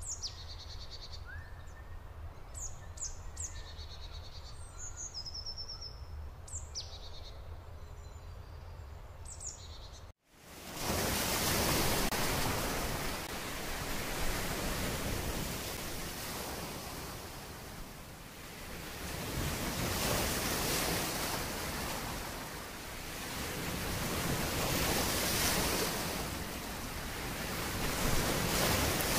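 Songbirds chirping and calling in short, separate phrases over a low steady hum. About ten seconds in the sound cuts abruptly to a loud rushing noise that swells and eases every few seconds.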